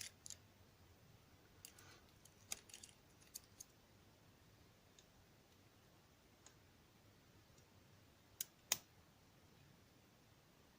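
Scattered small clicks of lock picks working the pins inside a DOM ix Saturn cylinder lock, with a louder pair of clicks late on.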